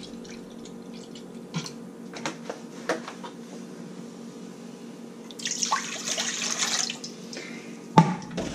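Orange juice poured from a plastic measuring cup into a stainless steel bowl: a splashing pour of about a second and a half, a little past the middle, after a few light clicks of handling. A sharp knock near the end.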